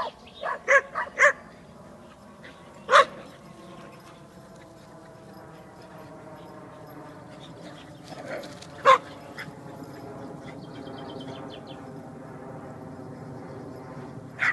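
Dog barking in short, sharp barks during play: a quick run of barks at the start, then single barks about three seconds in, around nine seconds in, and at the very end.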